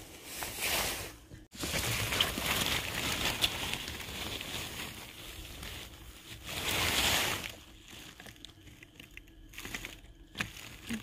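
Rustling and crinkling of forest-floor vegetation being handled and brushed through while mushrooms are picked, swelling louder about seven seconds in, with a few light ticks.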